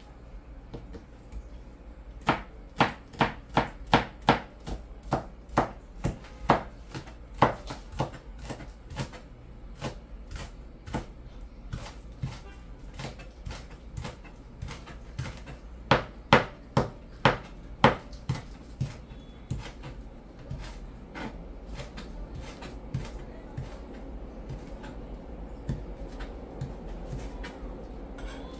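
Kitchen knife chopping vegetables on a cutting board: runs of sharp strikes about two a second, loudest in the first third and again for a couple of seconds past the middle, then softer, scattered taps.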